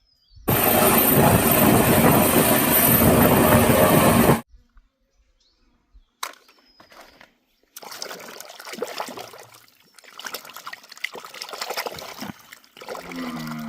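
Water running loudly for about four seconds, then cutting off sharply, followed by quieter irregular splashing and trickling.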